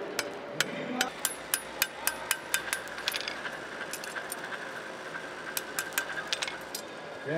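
Blacksmiths' hammers striking hot steel on anvils: an irregular run of sharp metallic blows, thinning out in the middle and picking up again near the end.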